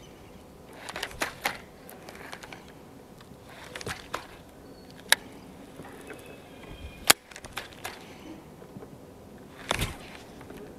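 Scattered sharp clicks and light knocks of rod-and-reel handling on a boat deck, the two sharpest about five and seven seconds in, over a quiet background.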